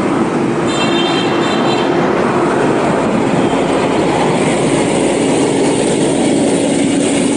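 Steady loud rush of wind on the microphone with tyre and road noise, from a sports bicycle ridden at speed.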